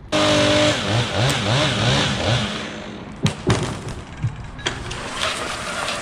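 Gas chainsaw engine cutting in suddenly and revving up and down several times in quick succession, then running on, with two sharp knocks about three seconds in.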